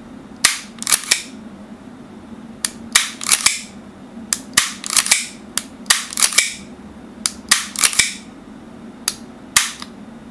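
Tokyo Marui Hi-Capa Infinity gas blowback airsoft pistol firing about a dozen shots in quick groups of two or three. Each shot is a sharp crack with a short hiss of gas as the slide cycles.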